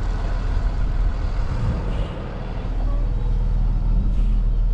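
Peterbilt 337 rollback tow truck's diesel engine running as the truck creeps along slowly, getting a little louder about three seconds in.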